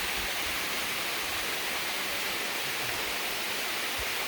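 Steady rush of a waterfall, an even wash of falling water that does not change.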